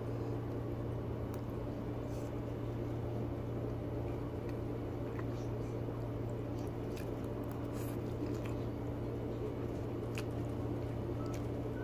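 A person eating spaghetti: wet chewing and sucking in of noodle strands, with scattered small mouth and fork clicks, over a steady low hum.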